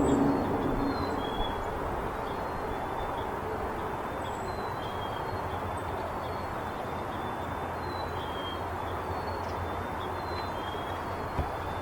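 Steady rush of busy highway traffic, with faint short high bird chirps repeating every second or so and a single click near the end.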